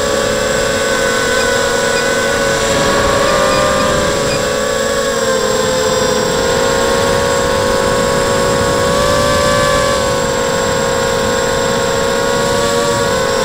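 ZMR-frame FPV quadcopter's motors and propellers whining steadily in acro flight, heard through a camera mounted on the quad. The whine shifts a little in pitch, dipping about five seconds in and rising again around ten seconds.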